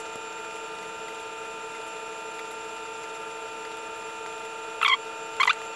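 Steady hum made of several fixed pitches, with two short sharp clicks near the end, about half a second apart.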